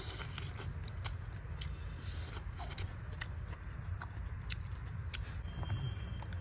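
A person chewing chicken gizzard: scattered sharp clicks and crunches from the mouth, a few a second, over a steady low hum.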